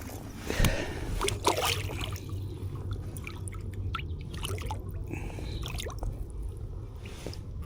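Water splashing and dripping close by, with a few sharp knocks, loudest about half a second and again about a second and a half in, over a steady low rush of river.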